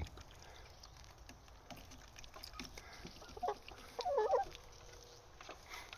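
Chickens clucking softly: a short call about three and a half seconds in and a warbling call around four seconds in, with faint clicks between.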